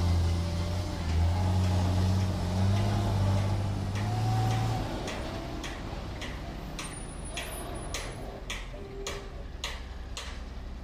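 Tata heavy-haul truck's diesel engine running under load as it pulls a loaded lowbed trailer away, dropping off after about five seconds. Then a regular ticking, about two clicks a second, continues to the end.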